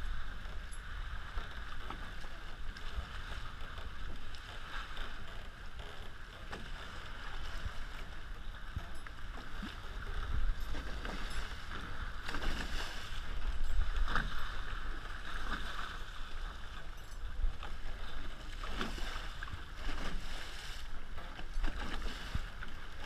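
Water rushing and splashing along the hulls of a Hobie 16 catamaran under sail, with wind buffeting the microphone as a low rumble. The splashing grows louder around the middle.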